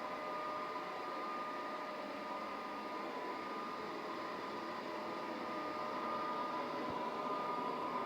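Polaris 0920 robot vacuum cleaner running: a steady whir of motor and suction with a high whine, slightly louder about six seconds in.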